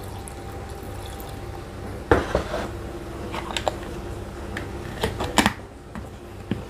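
Water pouring from a plastic jug into a glass blender jar of chopped chilies and shallots. A sharp knock comes about two seconds in, followed by light clicks and knocks of plastic on glass as the blender's plastic lid is handled and pressed onto the jar, most around five seconds in.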